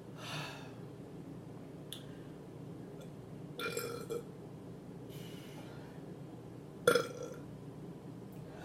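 A woman burping: a soft burp about halfway through and a short, louder one near the end.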